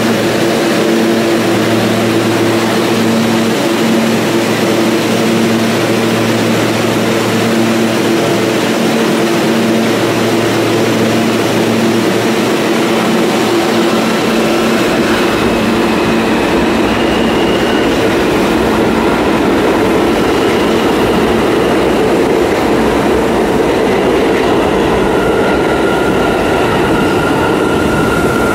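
New York City subway train at the platform, first a steady hum while it stands, then wheels rumbling on the track as it pulls out from about twelve seconds in. Faint high whining tones come in as it accelerates away.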